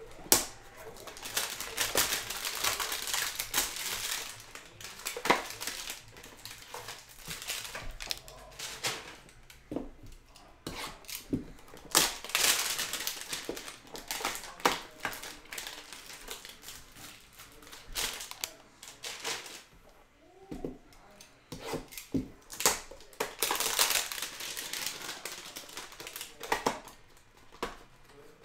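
Cardboard hanger boxes of trading cards being opened by hand and their cellophane-wrapped packs pulled out: the plastic wrap crinkles in three longer bursts, with sharp clicks and snaps of cardboard and wrapping in between.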